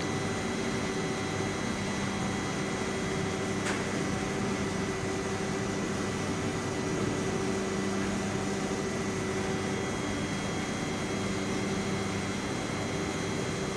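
Steady hum of a standing ÖBB Cityjet (Siemens Desiro ML) electric multiple unit, its ventilation fans and electrical equipment running, with a few constant whining tones over it. A single short click about four seconds in.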